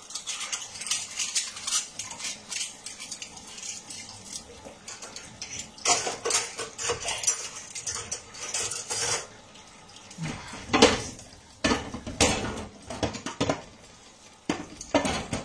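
Dishes and cutlery clinking and knocking against each other in a sink during hand dishwashing, an irregular clatter that grows busier about six seconds in.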